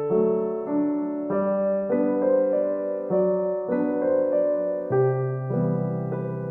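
Background piano music: soft electric-piano chords changing about every half second to second.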